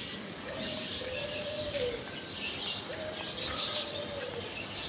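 Birds chirping, with a low call twice that holds steady for about a second before falling off at the end.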